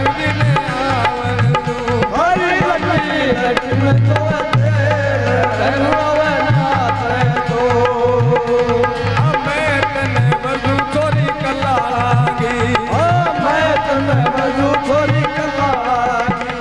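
Live Rajasthani folk devotional music: a harmonium and a dholak drum playing a steady, even beat, with a voice gliding over the melody.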